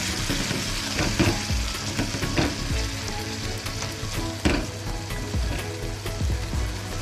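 Onion-tomato masala sizzling in a metal pan with a little added water, stirred with a steel spoon that scrapes and knocks against the pan a few times.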